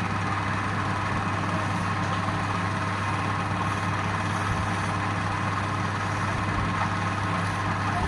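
Wood lathe running steadily with an even low hum.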